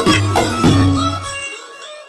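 Yemeni zamil chant with its backing music coming to an end: the low beat cuts out about one and a half seconds in and the remaining voices and tones fade away.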